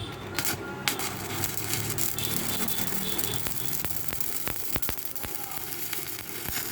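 Electric arc from a 250 A welding machine burning steadily: a continuous crackling hiss with sharp pops over a low electrical hum.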